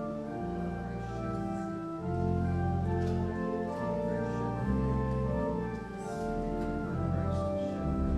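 Church organ playing slow sustained chords over deep bass notes that change every second or two.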